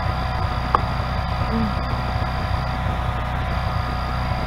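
A steady low mechanical hum, with a single sharp click about three-quarters of a second in.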